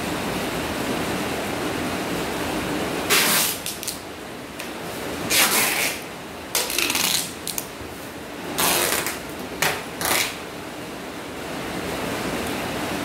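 Red plastic packing tape being pulled off its roll around a box in several short, rasping rips, over a steady hiss.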